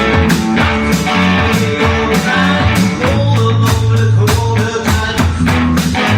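Rock and roll band playing over a steady, driving beat, with guitar and bass.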